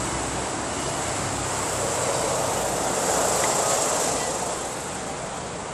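Road traffic noise: the steady rush of a vehicle passing on a nearby road, swelling about two seconds in, peaking near the middle and then fading.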